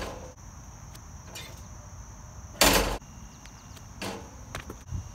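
Basketball dunk on an outdoor hoop: one loud thud about two and a half seconds in, then lighter knocks as the ball is slammed through the rim around four seconds in, over a steady high hiss.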